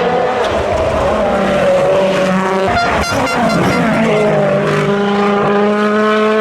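World Rally Car engine at high revs on a stage, pitch dipping and climbing with the throttle and gear changes. There is a short run of rapid clicks about three seconds in, then a steady, slowly rising pull.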